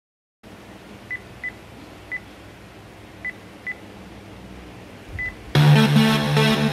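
Sony digital voice recorder giving six short, high key beeps as its buttons are pressed, over a faint low hum. About five and a half seconds in, music starts loudly, played from the recorder through a home-built 12-volt class A stereo amplifier with 2SC5200 and 2SA1943 output transistors and its speakers.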